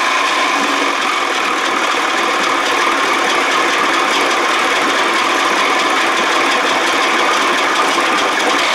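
1979 Evinrude 55 hp two-cylinder two-stroke outboard running steadily in a water test tank, a loud, even engine noise.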